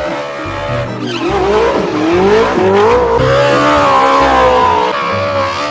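Drifting race car: the engine revving hard, its pitch dipping and climbing, with the tyres squealing as the rear wheels spin and smoke.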